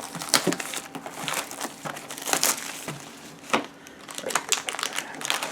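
Packaging of a Pokémon trading card booster box being crinkled and torn open by hand, with irregular crackles and rustles and a few sharper snaps, the box proving hard to open.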